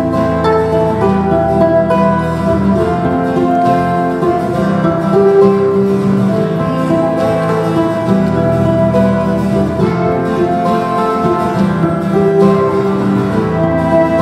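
Acoustic guitar and ukulele strumming together under a violin melody of long held notes, in an instrumental passage without singing.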